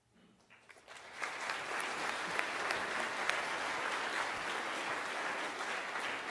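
Audience applauding, swelling over about the first second and then going on steadily.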